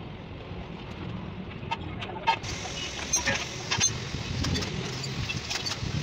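Clicks and light metallic clinks of pipe fittings and hand tools being handled, most of them after about two seconds, over a steady low rumble.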